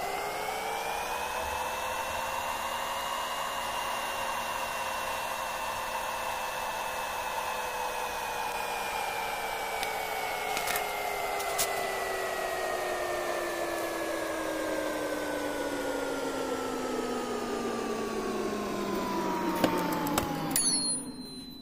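Air fryer fan motor running with a steady whine that rises in pitch over the first couple of seconds, then slowly sinks. It winds down and cuts off near the end, with a few clicks.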